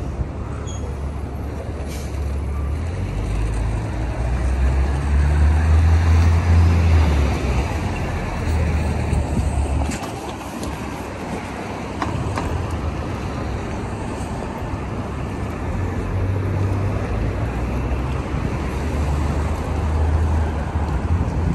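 City street traffic: a steady wash of passing cars, buses and trucks, with a deep low rumble that swells twice, around five to seven seconds in and again near the end.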